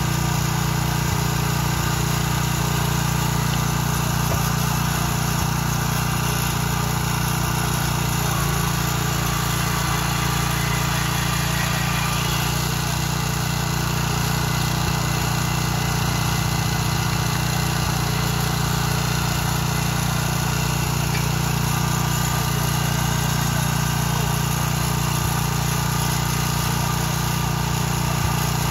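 Small petrol engine of a portable rail track machine running steadily at an even speed.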